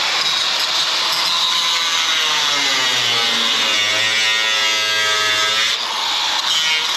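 Electric reciprocating saw cutting through the steel wall of a shipping container, its motor pitch wavering under load, with a brief dip about six seconds in. The blade is running along a welded seam that is damaging its teeth.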